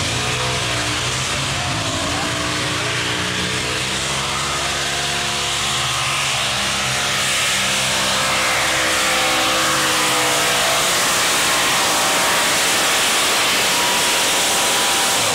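Red Painter, a modified pulling tractor with several engines, running at full throttle as it drags the pulling sled down the track. The engines make a loud, steady sound whose pitch drifts slowly, and it cuts off abruptly at the end.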